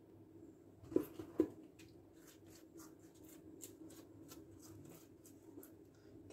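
Faint crackle and patter of sesame seeds as a honey-coated pastry is pressed and turned in sesame on a plate by hand, with two soft taps about a second in.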